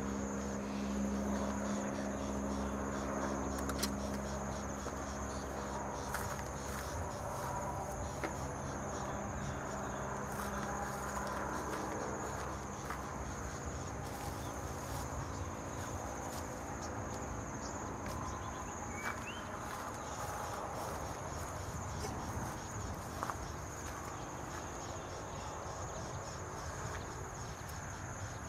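Insects calling steadily in one high, continuous tone, with a low hum that fades over the first few seconds.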